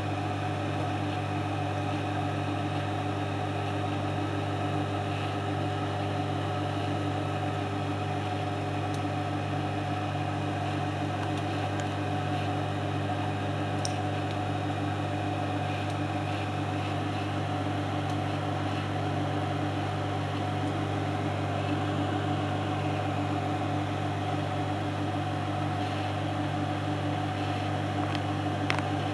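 Microwave oven running mid-cycle: a steady, even hum.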